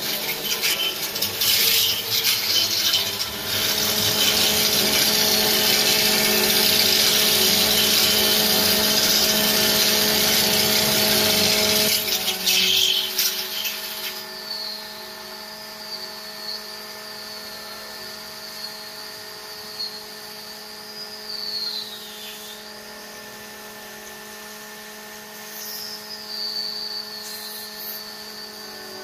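Electric wood lathe running with a steady motor hum while a hand-held turning tool cuts a spinning wooden pillar, a loud hissing cut for about the first twelve seconds. The cutting then goes much quieter, leaving the motor hum and a thin high whine that wavers.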